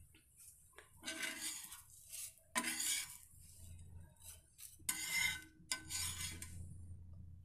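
A metal spatula scraping and rubbing across a hot iron dosa pan in several separate strokes, working the pan clean and spreading oil before the next dosa is poured.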